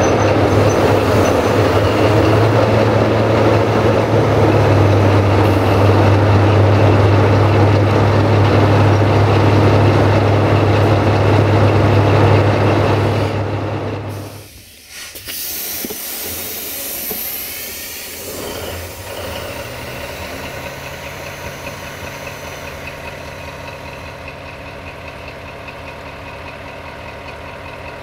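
Diesel railway engine running with a loud, steady low drone. About fourteen seconds in the sound falls away sharply. A brief high hiss follows, then a quieter, steady engine drone.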